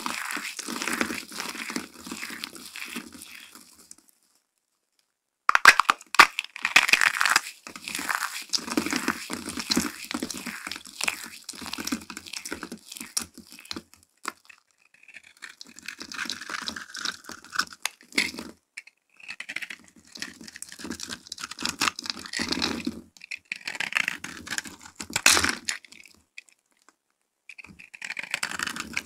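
Hands crushing and crumbling a heap of dry, brittle soap shards: a crisp, uneven crunching and crackling that comes and goes in handfuls, with a clean break of about a second and a half a few seconds in. Near the end a knife starts cutting into a dry soap bar.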